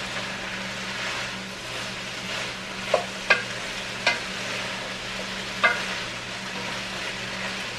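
Diced ham and potatoes sizzling as they fry in a heavy black pot, stirred with a wooden spatula. The spatula knocks sharply against the pot four times, about three to six seconds in.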